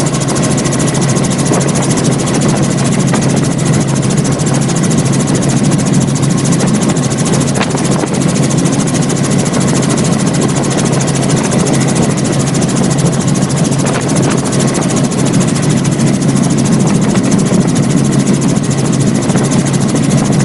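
Loud, steady aircraft engine noise with a low hum, starting and stopping abruptly.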